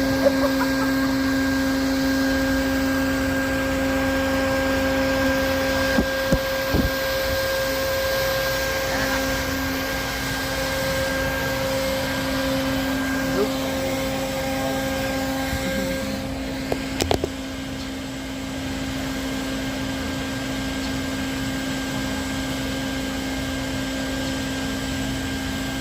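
Vacuum running steadily at the opened hive cavity, a constant hum, with a few short knocks about six and seventeen seconds in.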